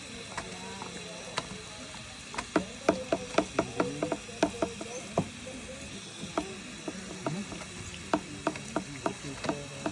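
Elephant chewing sugar cane, the fibrous stalks cracking and crunching between its molars in quick runs of sharp snaps. The snaps come in two bursts, the first and loudest a few seconds in and the second near the end.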